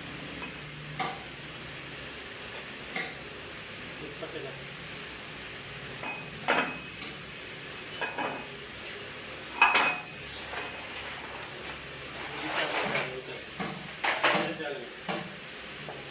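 Metal tools and engine parts clinking and clanking as they are handled. The knocks are irregular and some ring briefly; the loudest clank comes about ten seconds in, followed by a scraping rattle and a few more clanks, over a steady low hum.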